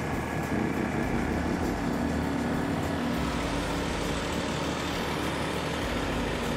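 Steady engine drone of heavy equipment running on the job, the Vactor vacuum truck and the generator that powers the submersible pump, with a low steady hum and no change in pace.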